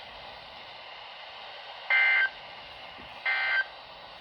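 Weather radio Emergency Alert System end-of-message code: two short, buzzy bursts of digital data tones, about a second and a half apart, over a steady radio hiss. They mark the end of the severe thunderstorm warning broadcast.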